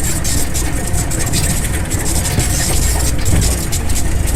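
Jeep driving over a rough track: a steady low engine rumble with frequent knocks and rattles from the body.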